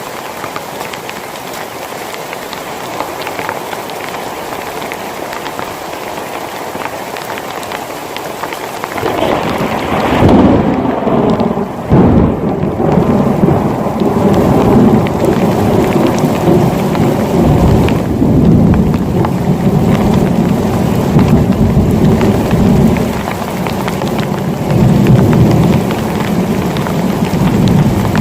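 Heavy rain falling steadily. About nine seconds in, thunder breaks with a sharp crack, then a long, heavy, rolling rumble.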